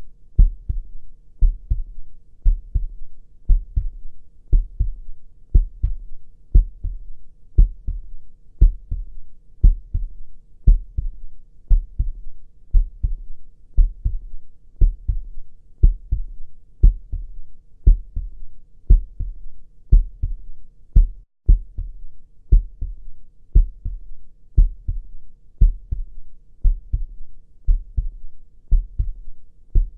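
Heartbeat sound: steady deep lub-dub double beats, about one a second, with a very short break about two-thirds of the way through.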